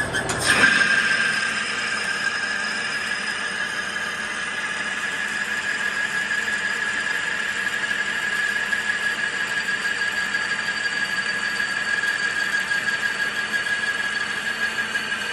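Manual metal lathe taking a heavy 0.200-inch-deep turning cut: a sharp, loud onset about half a second in, then a steady high-pitched squeal from the machine and cut.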